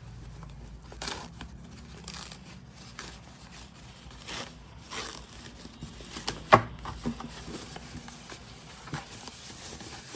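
Packaging rustling, crinkling and scraping as the oscilloscope is handled out of its box, with one sharp knock about six and a half seconds in.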